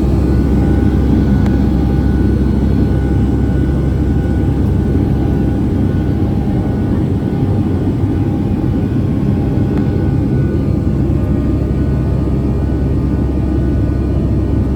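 Boeing 757-200 passenger cabin: a steady, loud drone of the jet engines and airflow, with faint whining tones above it.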